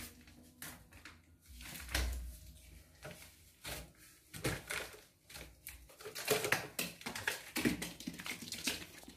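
Irregular taps, knocks and rustles of two baby monkeys climbing and scrambling over a covered play shelf and a tiled floor, busier and louder in the second half.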